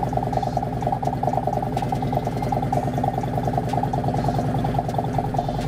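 Harley-Davidson Street Glide's V-twin engine idling steadily with a quick, even pulse, running normally again once a stored security fault code has been cleared.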